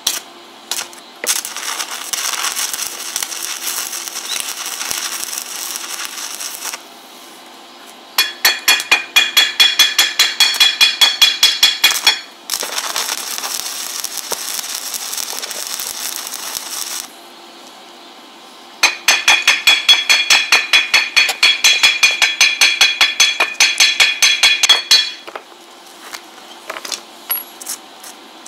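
Stick arc welding on steel bars: the arc hisses and crackles in several runs of a few seconds each, with short pauses between. In two of the runs the crackle comes as a fast, even pulsing.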